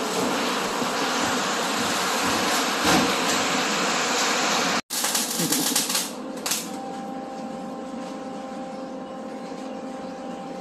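Heavy rain falling, a steady even hiss. About five seconds in it cuts off abruptly and a quieter steady hum with a faint high whine takes over.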